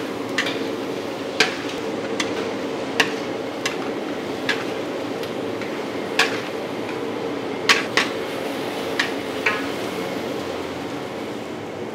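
Metal spatula stirring diced onions in a large aluminium wok, clanking and scraping against the pan about a dozen times at an irregular pace, over a steady background hum; the clanking stops a couple of seconds before the end.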